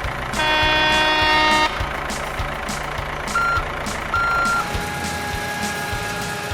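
Cartoon-style truck sound effects: a low engine rumble throughout, a loud held horn-like tone lasting just over a second near the start, then two short high beeps and a steady thin whine.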